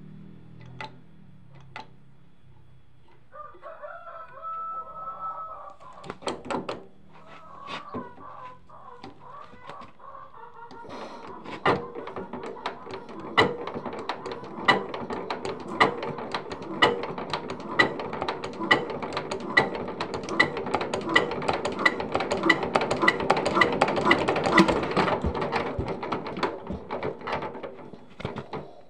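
Jiang Fa single-cylinder diesel engine being hand-cranked: a rhythmic mechanical clatter of knocks that come faster and grow louder, then ease off and fade near the end. A rooster crows once about four seconds in.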